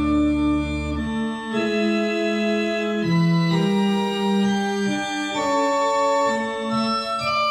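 Pipe organ, a 1972 German-built instrument, playing an improvisation in held chords that change every second or so. A deep pedal note sounds under the chords for about the first second and then drops out.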